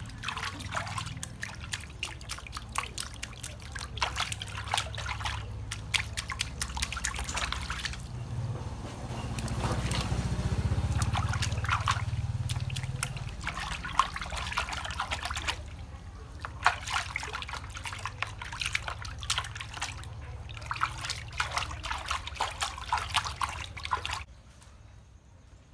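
Hand splashing and scooping water in a plastic basin during a bath, with trickling and dripping. The splashing stops abruptly near the end.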